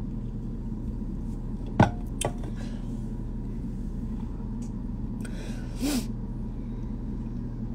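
Drink can set down on a hard surface with a sharp clack about two seconds in, then a lighter knock, over a steady low room hum. A short breathy sound follows near six seconds.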